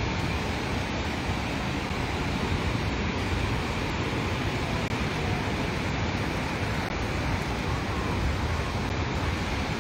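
Steady rush of ocean surf at the beach, with wind buffeting the microphone.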